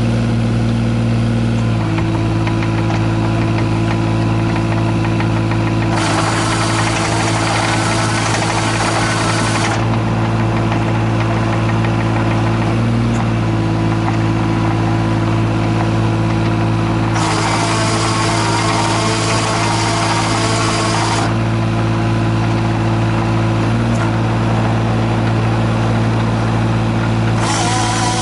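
Komatsu PC15R-8 mini excavator's diesel engine running steadily, with three spells of louder hissing and whining as the hydraulics are worked: about six seconds in, again around seventeen seconds, and near the end.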